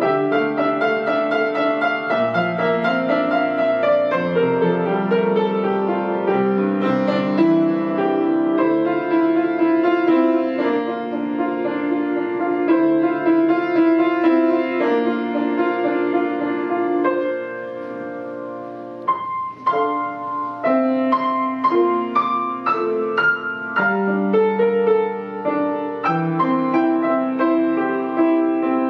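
Slow piano music playing a hymn tune, with sustained chords. It softens briefly about two-thirds of the way through, then comes back with distinctly struck chords.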